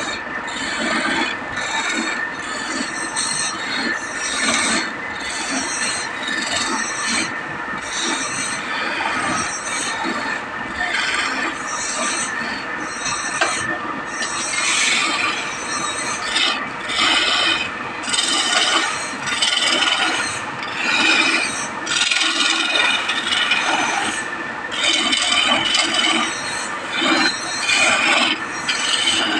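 Hand tool scraping wood in steady back-and-forth strokes, a little more than one stroke a second, with a faint steady hum underneath.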